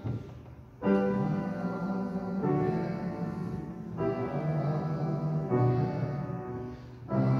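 Slow keyboard music: held chords, each lasting about a second and a half before the next begins, after a short gap near the start.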